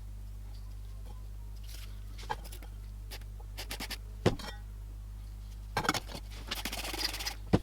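Metal parts of a hand-crank fire alarm being handled during disassembly: a few scattered clicks and knocks, then a short scrape near the end, over a steady low hum.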